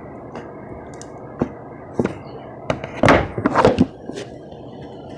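Bubbly slime being squeezed and handled, giving a few small sharp pops and then a louder run of squelches and pops of trapped air.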